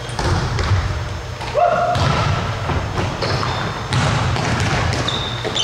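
Basketball game on a hardwood gym floor: repeated thuds of the ball bouncing and players' feet, with a few short high sneaker squeaks, echoing in the large hall.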